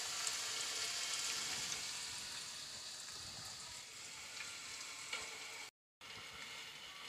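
Sliced onions frying in hot oil in a wok: a steady sizzle with scattered crackles that gradually grows quieter. A spatula stirs them near the end, and the sound cuts out for a moment about six seconds in.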